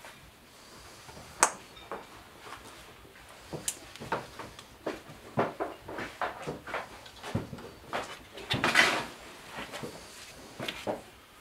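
Small plastic epoxy containers being handled, opened and squeezed on a workbench: scattered clicks and taps, with a louder, longer scratchy sound about nine seconds in.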